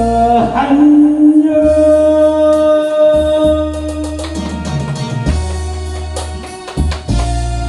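Song accompaniment: long held melody notes over a steady bass and drum beat.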